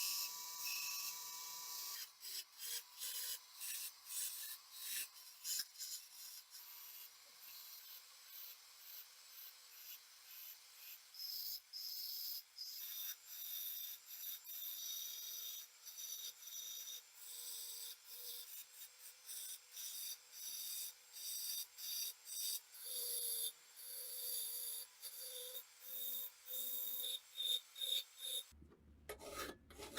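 Hand filing during a gun restoration: repeated back-and-forth rasping strokes, about one or two a second, with a steadier stretch of scraping in the middle.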